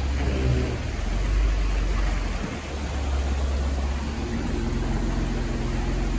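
Jeep Wrangler JK engine running as it drives along a muddy trail, a steady low rumble that dips briefly about halfway through.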